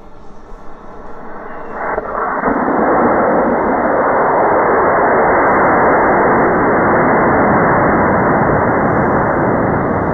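High-power model rocket motor igniting and burning at liftoff: a loud, steady rushing noise that builds over the first two seconds and then holds.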